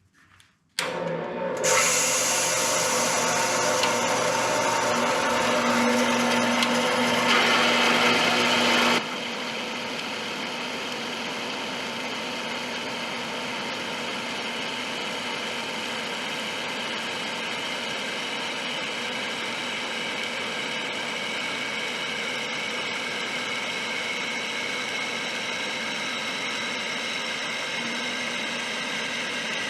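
A power tool running continuously. It starts about a second in and is loudest for the first several seconds, then drops suddenly at about nine seconds in and runs on at a steady, lower level.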